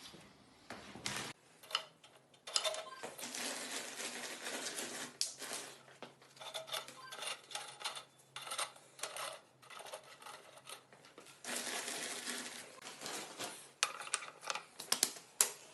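Light clinking, rattling and scraping of metal, stopping and starting, as a wire-mesh support is fitted over an aluminium bowl set in a concrete fireplace base.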